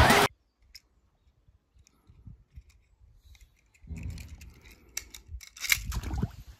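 A loud sound cuts off suddenly just after the start. Then come faint scattered clicks, and from about four seconds in a stretch of soft handling noise with light knocks and rustles, the loudest of them near the end.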